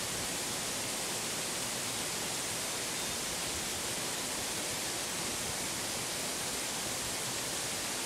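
A tall mountain waterfall falling down a rock face: a steady, even rush of water, heaviest in the treble.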